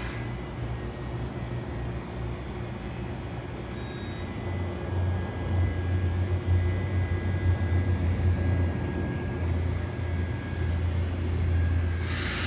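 Hydraulic elevator machine room: a steady low electrical hum with a faint high whine, the hum growing stronger about four and a half seconds in, as from the hydraulic pump motor starting to run.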